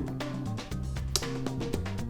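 Background music: a steady run of low sustained notes changing in pitch, with light clicks over it.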